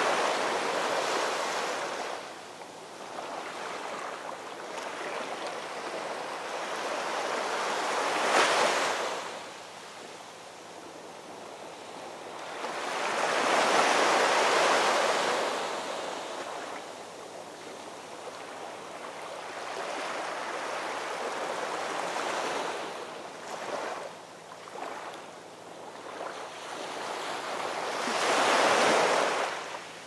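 Heavy storm surf crashing onto rocky ledges. Each wave builds into a loud rush of white water and then fades, five surges in all, about every six to eight seconds.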